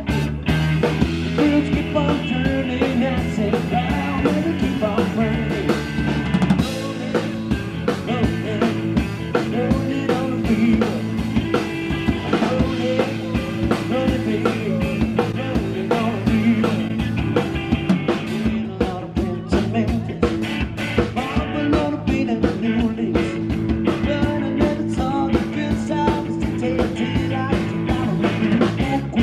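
Rock and roll music with a singer, drum kit and guitar playing to a steady beat.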